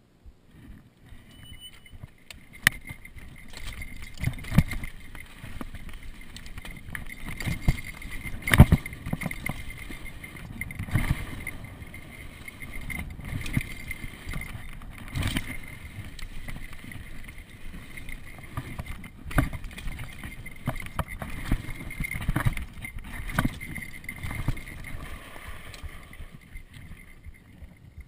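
Mountain bike riding fast down a dirt trail: tyre rumble over the dirt and rattle of the bike. Sharp knocks come again and again as it hits bumps and lands jumps. The ride noise dies down near the end as the bike slows to a stop.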